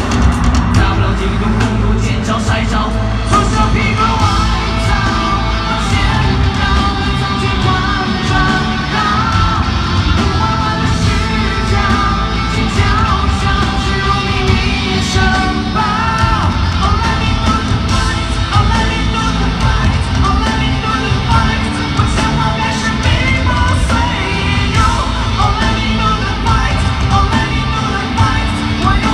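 Live rock-pop band music playing loudly through a stadium's sound system with a heavy bass beat, heard from far up in the stands, with voices singing and yelling over it.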